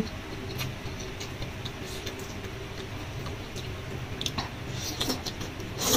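A few light clicks of wooden chopsticks against a noodle bowl as noodles are picked up, over a low steady hum.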